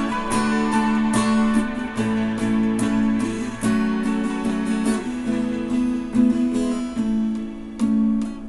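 Acoustic guitar played in chords, with repeated strummed and plucked strokes. A chord struck shortly before the end is left to ring out and fade.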